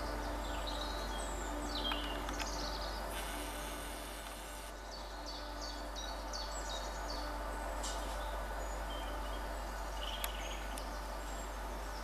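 Wild songbirds chirping and singing in short, quick, often falling notes, over a steady outdoor hiss.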